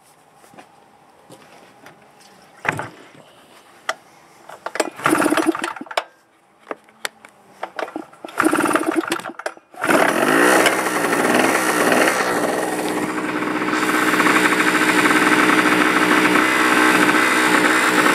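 Knocks and rattles of handling for the first ten seconds. Then the Harbor Freight Tailgator generator's small two-stroke engine starts suddenly, its pitch wavering for a couple of seconds before it settles into steady running on a freshly fitted NGK spark plug gapped at 0.028 in.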